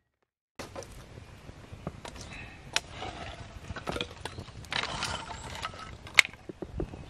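Scattered light clicks and knocks, one sharper knock about six seconds in, with a short rustle around five seconds in; the sound starts after half a second of silence.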